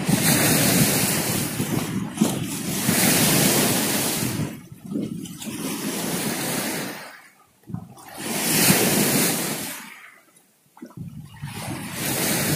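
Rushing noise of wind and sea at the shore, swelling and fading in surges every few seconds and dropping almost to silence between some of them.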